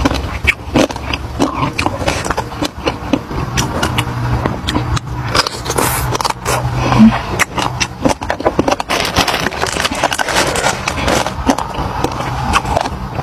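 Close-miked mukbang eating: a person chewing food in the mouth, with a dense run of small crunches and wet clicks.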